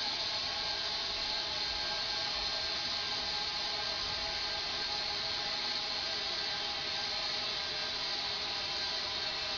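Steady hiss of compressed air rushing out of an air tank through an opened sprinkler valve, with faint steady tones under it.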